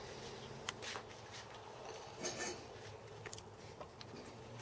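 Faint scattered clicks and light metallic clinks as a cast aluminium fly cutter body and its small steel parts (tool bit, set screws) are handled, over a faint steady low hum.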